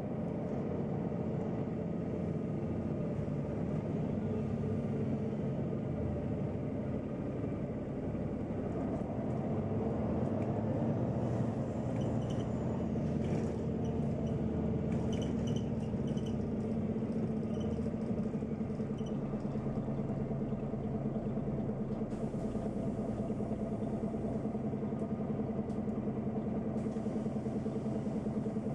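Neoplan N 4416 Centroliner city bus heard from inside while driving: its engine hums at a steady, nearly constant pitch under the tyre and road noise. A run of short clattering knocks from the bus comes in the middle.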